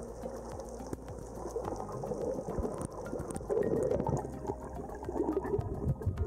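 Muffled underwater water noise with bubbling and gurgling, louder from about three and a half seconds in, over a fine steady crackle of clicks.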